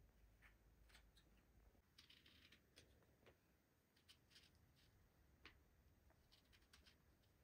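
Faint, scattered crackles and short scrapes of a small knife cutting the peel off an orange.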